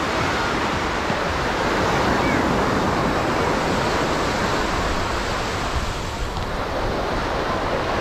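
Ocean surf breaking and washing up the beach, a steady rush of waves that eases slightly a little after six seconds.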